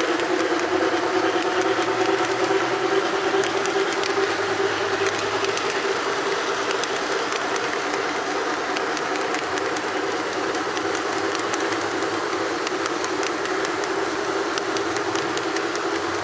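Model train passenger cars rolling past on the layout track: a steady rolling hum from the wheels, with frequent light clicks as they cross rail joints.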